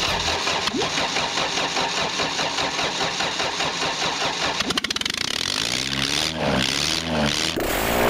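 Ford engine running with its exhaust manifold removed, each firing pulse cracking straight out of the open exhaust ports in a rapid, harsh rattle. In the second half the revs rise and fall a few times.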